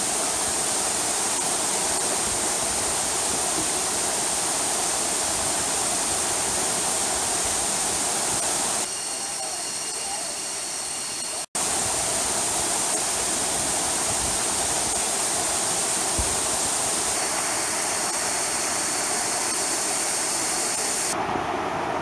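Waterfall pouring onto rocks and into a pool, a steady rush of water. It turns briefly softer for a couple of seconds a little before the middle, then comes back at full strength.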